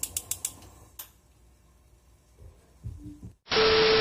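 Rapid mechanical clicking, about eight clicks a second, stopping about half a second in, with one more click about a second in. Near the end a loud burst of TV static with a steady buzzing tone sets in: a glitch transition sound effect.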